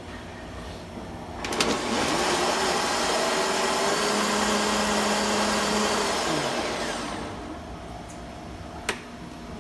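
Countertop blender running for about five seconds, blending a shake, then winding down and fading out. A sharp click comes just before it starts and another near the end.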